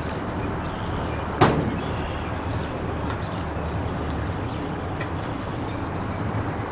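Steady outdoor background noise with a low rumble, broken by a single sharp bang about a second and a half in.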